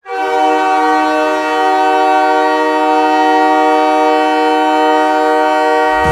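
Montreal Canadiens' hockey goal horn sounding one long, steady blast: a deep chord of several notes held unchanged for about six seconds, signalling a goal.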